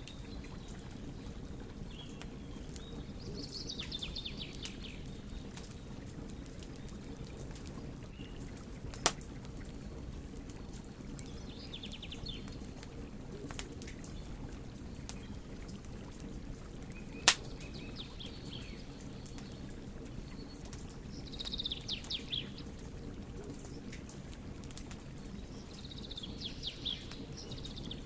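Wood fire burning with a steady low rumble and scattered faint crackles, broken by two sharp loud pops, about nine and seventeen seconds in.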